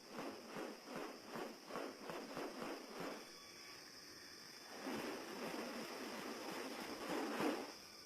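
Rhythmic rasping pulses, about three a second, for the first three seconds, then a longer rustling hiss that stops suddenly near the end, typical of a bird of paradise's display sounds. A steady high insect drone runs underneath.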